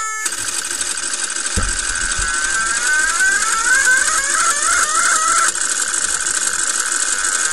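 An ATOM (Audible Transmitter Output Monitor) giving warbling tones around the middle of the hearing range that shift pitch in steps, as an LDG autotuner searches for a match; the pitch follows the transmitter's RF output, so the changing tones mark the antenna system moving in and out of tune. Under the tones runs a dense rapid clatter, with a short low thump a little over a second in.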